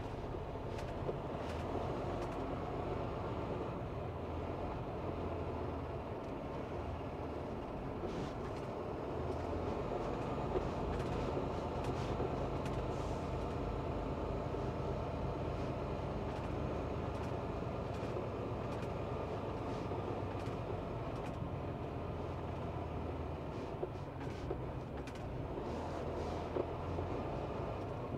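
Semi truck's diesel engine running, heard from inside the cab as a steady hum that swells and eases a little, with a few light clicks and rattles now and then.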